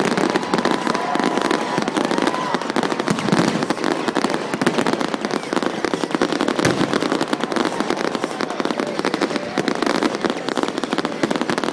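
Fireworks going off in a dense, continuous crackle of rapid small pops from glittering, crackling effects.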